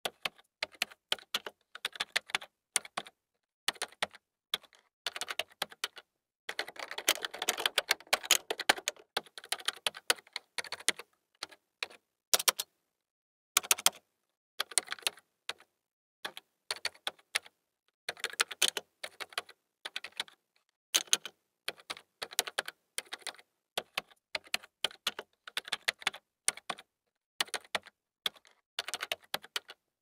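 Typing on a low-profile computer keyboard: quick runs of key clicks in bursts, broken by short pauses, with one fast, dense run of typing several seconds in.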